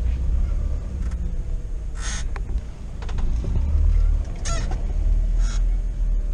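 UAZ 452 van's engine running with a low drone, heard from inside the cab, swelling in level about four seconds in. Three short, harsh squawks cut through, about two, four and a half and five and a half seconds in.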